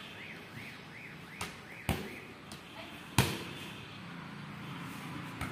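A volleyball being hit and bouncing off a wall: a few sharp thuds, the loudest about three seconds in. Over the first two seconds a high warbling chirp repeats about three times a second in the background.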